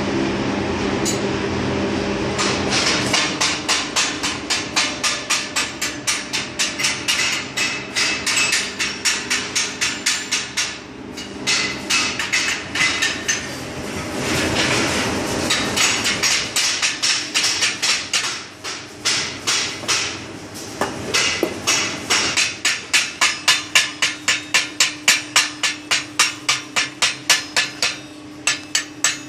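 Chipping hammer striking a freshly laid arc-weld bead on steel plate, knocking off the slag left by the electrode's coating. Rapid metallic taps come about two to three a second, in runs with a few short pauses.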